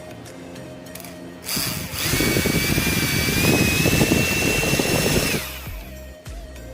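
Small high-speed DC motor spinning the fan of a homemade electric 'jet engine': it starts about a second and a half in with a loud high whine and a rush of air, the whine climbing slightly as it runs. It cuts off about a second before the end and winds down briefly.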